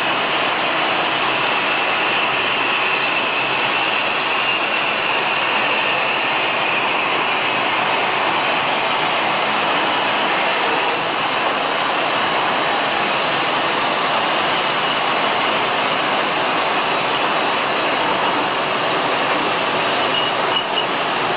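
Automatic glass bottle washing machine running, a loud, steady, unbroken mechanical noise.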